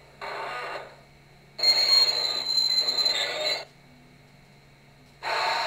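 Phoenix P5 sound board in an LGB Wild West Forney model steam locomotive playing triggered locomotive sound effects through its small speaker: a short noisy burst, then a louder effect of about two seconds with a high ringing tone, then another steady noisy effect starting near the end.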